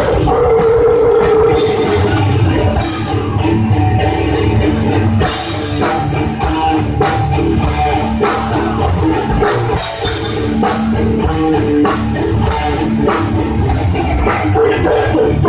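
Heavy metal band playing live: distorted electric guitars and bass over a drum kit with frequent hits and cymbal crashes, loud and dense throughout.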